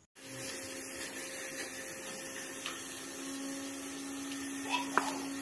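A steady machine-like hum with a hiss over it, and one short sharp click near the end.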